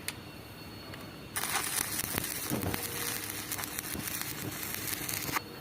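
Electric arc welding on steel during column fit-up: a steady crackling hiss from the arc that starts abruptly about a second in and stops suddenly near the end, about four seconds of welding, like a tack weld.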